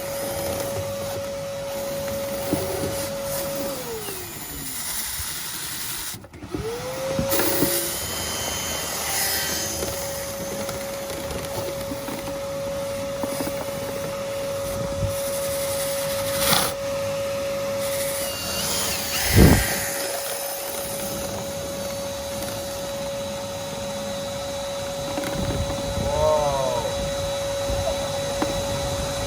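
Shop vac running with a steady whine while a drill spins the vent-cleaning brush rods through the dryer duct. The whine winds down about four seconds in and spins back up a few seconds later. There are a couple of knocks, the loudest about two-thirds of the way through, and a short squeak near the end.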